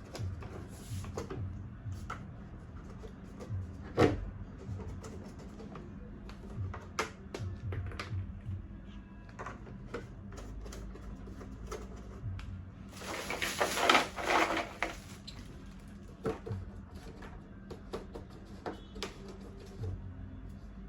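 Baby high chair base parts being handled and fitted together: scattered clicks and knocks, a sharp knock about four seconds in, and a burst of scraping and rattling around fourteen seconds.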